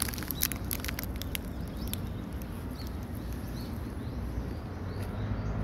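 Outdoor ambience: a steady low rumble, a cluster of sharp ticks in the first two seconds, and a few faint short bird chirps in the middle.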